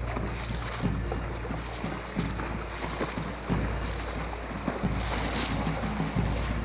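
Horses wading across a shallow river, water splashing around their legs again and again over the steady rush of the current.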